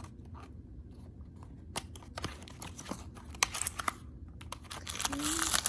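Small clicks and taps as a toy blind-box package is handled and opened, followed by plastic packaging crinkling, which builds up near the end.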